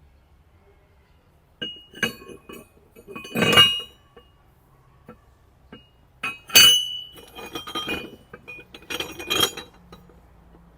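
Steel timing gears and broken gear pieces from a truck engine being handled, clinking and ringing against each other in a series of separate knocks, the two loudest about three and a half and six and a half seconds in.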